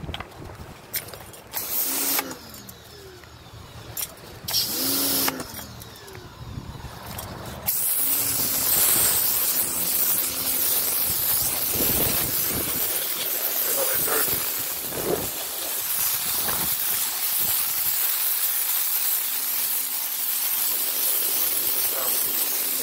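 Electric pressure washer: two brief spurts as the motor spins up and down, then from about eight seconds in a steady loud hiss of the water jet spraying onto concrete, with the pump motor running underneath.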